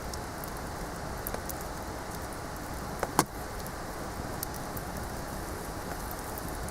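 Wood bonfire crackling steadily with small scattered pops, and a sharper double pop about three seconds in.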